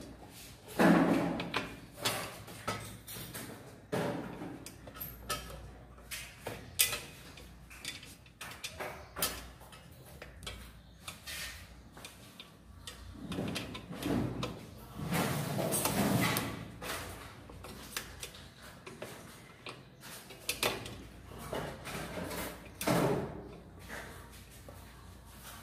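Handling and fitting the cover plate of an MCB distribution board: irregular knocks, clicks and scraping, with a few louder rattling handling noises, as the plate is set in place and screwed down.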